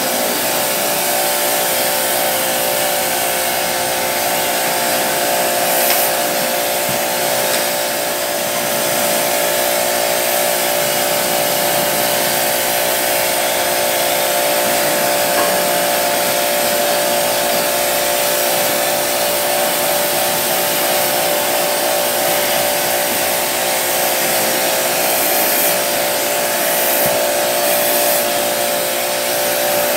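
A motor-driven cleaning machine running continuously: a steady motor whine over an even spray-like hiss, with no breaks, as the fins of a ceiling cassette air conditioner are cleaned.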